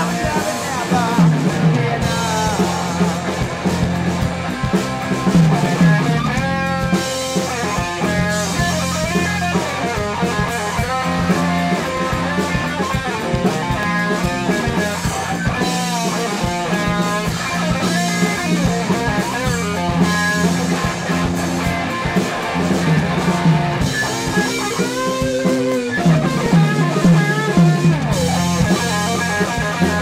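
Rock band playing: electric guitar, bass guitar and drum kit with keyboard, a lead line bending up and down in pitch at times.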